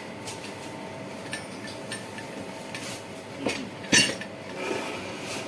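Metal tools and parts clinking and knocking during a motorcycle front shock absorber repair. There are scattered light clicks, then two sharper metallic knocks about three and a half and four seconds in, the second the loudest.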